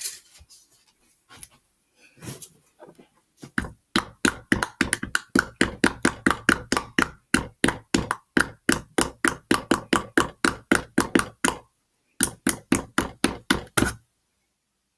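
Wooden stick knocking rapidly against the inside of a small jar as it is stirred, about five sharp clicks a second, with a brief pause near twelve seconds in and stopping a second before the end.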